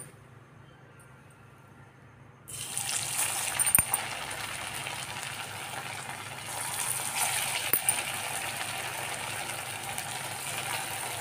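Sabudana-and-potato tikkis sizzling as they are slipped one at a time into hot oil in a kadhai. The sizzle starts suddenly about two and a half seconds in and grows a little louder around seven seconds.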